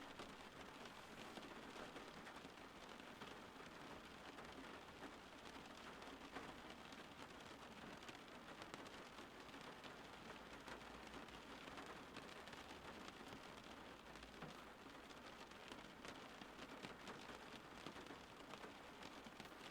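Faint, steady rain falling, an even hiss of many drops with no thunder.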